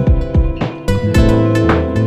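Background music: plucked-string notes, a few each second, ringing over sustained low bass notes.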